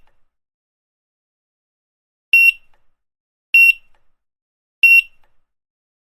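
Grocery checkout barcode scanner beeping three times. Each beep is a short, high, single tone, about a second and a quarter apart, with silence between.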